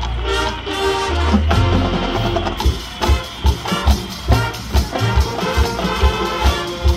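Marching band playing its field show: brass and woodwinds hold sustained chords over a heavy low bass, then from about three seconds in low drum hits fall on a steady beat, about two a second, under the winds.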